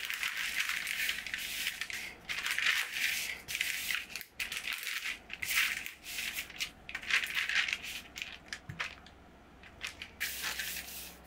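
Wooden rolling pin rolled back and forth over dough pressed between two sheets of baking paper: the paper crinkles and rustles in repeated surges, one with each stroke, with short pauses between.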